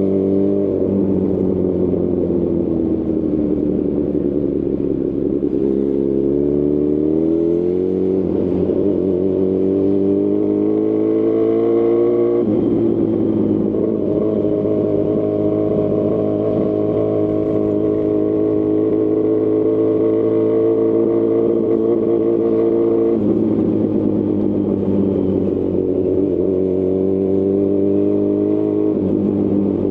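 2018 Honda CB1000R's inline-four engine running through a Lextek CP1 full exhaust system, heard while riding. The engine note sags, then climbs under acceleration, with abrupt changes in the note about twelve and twenty-three seconds in and a steady note between them.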